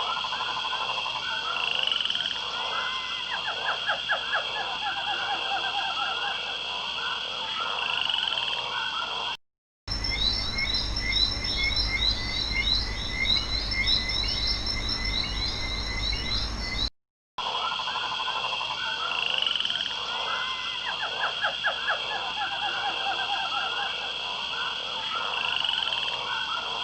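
A chorus of croaking frogs, with pulsed trilling calls over a steady high drone, cut off twice by brief silences. In between comes a different clip of rapid high chirping over a low rumble.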